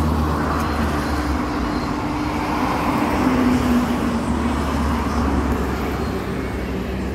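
A motor vehicle's engine running steadily, a low hum with a slight dip in pitch about three seconds in.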